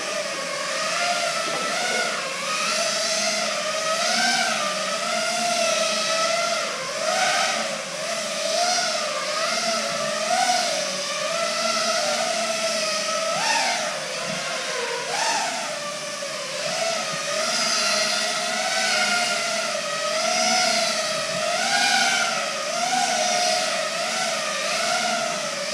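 FPV racing quadcopter with T-Motor F60 Pro II 2500kv brushless motors whining as it flies around, the pitch rising and falling continually with the throttle. A couple of sharper upward surges come about halfway through.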